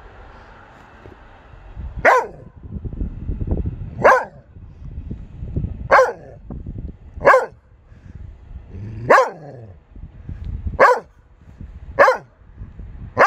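Belgian Malinois barking at the owner's outstretched hand: about eight sharp single barks, one every one and a half to two seconds, starting about two seconds in. The owner says the dog is threatening and won't actually bite.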